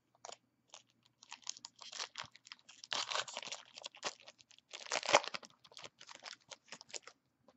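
A trading-card pack wrapper being torn open and crinkled by hand: a quick run of irregular crackles and rips, loudest about three and five seconds in.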